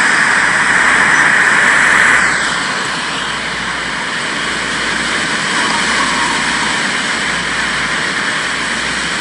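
Dense, steady rushing hiss, presented as the sound of a planet. A faint falling tone sweeps down about two seconds in and the sound eases slightly, then it cuts off abruptly at the end.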